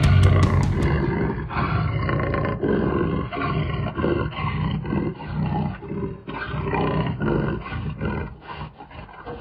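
A big cat's roar as a sound effect: a run of rough, growling roars that swell and fade over several seconds, following rock music that cuts off about a second in.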